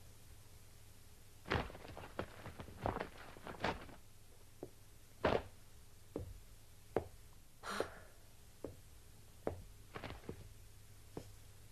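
Quiet sound-effect foley of someone undressing: scattered soft knocks and cloth rustles with a short swish about eight seconds in, as a coat comes off and a shirt is unbuttoned.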